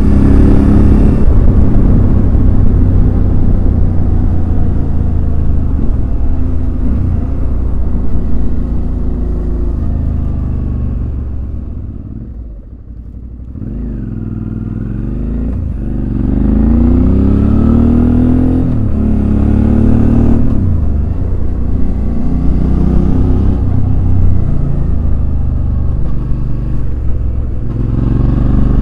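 Suzuki V-Strom DL650's V-twin engine running on the road. About halfway through the note drops away and quietens as the throttle is rolled off. It then climbs in pitch several times as the bike accelerates through the gears, and settles back into a steady run.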